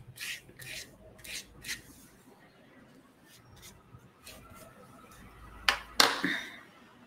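Dry paintbrush swept lightly back and forth over watercolour paper, short scratchy strokes about three a second for the first two seconds, then a few fainter ones. About six seconds in comes a sharp knock and short clatter, the loudest sound here.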